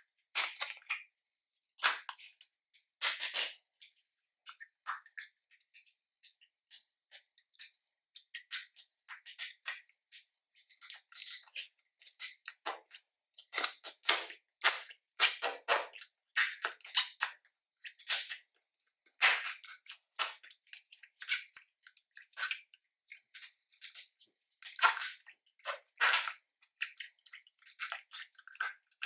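Slime being squished and kneaded by hand: irregular wet clicks, crackles and little pops of trapped air, in quick clusters that thicken about halfway through.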